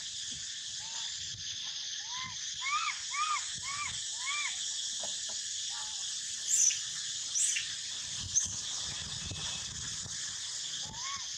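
A young monkey crying in a run of short, arched whimpering coos, about six of them in the first few seconds, then two brief shrill squeaks around the middle. A steady high hum of insects runs underneath.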